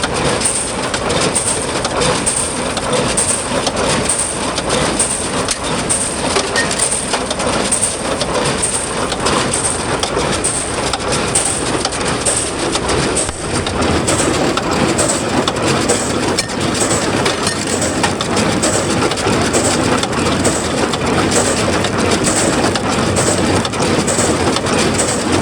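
Small old square hay baler running behind a tractor while baling, with a steady regular rhythm from the baler working.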